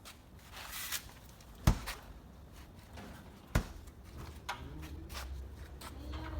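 Two sharp knocks about two seconds apart, with light handling and shuffling noises between them.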